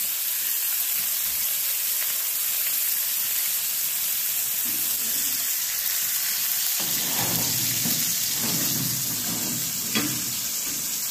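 Steaks sizzling in hot oil in a cast iron skillet. From about seven seconds in, a lower scraping rumble joins as the skillet is slid across the iron cooktop of the wood cook stove, with a single sharp knock about ten seconds in.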